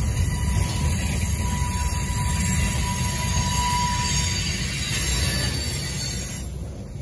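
Loaded centerbeam flatcars of a freight train rolling past: a steady rumble of wheels on rail, with a thin wheel squeal that swells in the middle and fades away. The sound eases off somewhat near the end.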